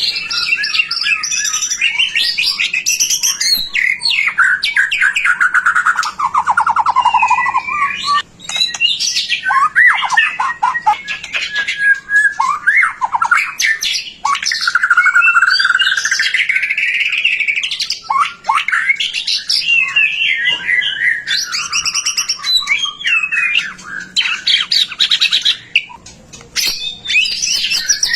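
White-rumped shama (murai batu) in full song: a long, varied run of whistled glides, rapid trills and rattling phrases, with only brief pauses.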